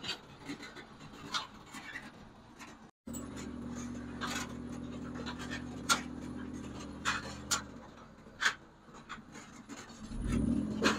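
Off-road buggy engine running with a steady drone, with scattered sharp knocks and rattles as the buggy bounces along a bumpy dirt track. Near the end the engine revs up, rising in pitch.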